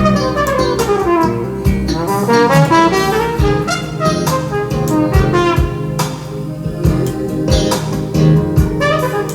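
Jazz band instrumental played back from a Revox B77 reel-to-reel tape deck: a brass horn plays a melody with falling, sliding phrases over bass and drums.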